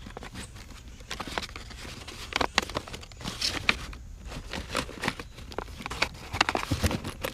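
Small metal teletype repair parts (little levers, gears and arms) being handled, with irregular clicks and light rattling.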